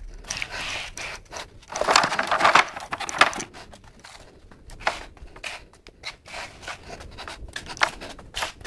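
Plastic fruit crates being handled: irregular knocks and clicks with scraping and rustling, loudest for a moment about two seconds in.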